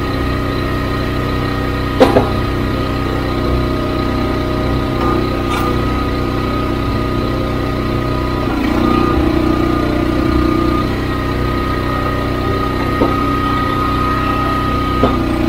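Wolfe Ridge Pro 28C log splitter's gas engine running steadily, with a sharp knock about two seconds in and two lighter knocks near the end.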